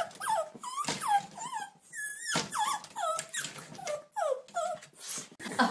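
Small dog whining and yipping excitedly in quick short high calls, about two a second, with one longer drawn-out whine about two seconds in, while it jumps up at a stocking.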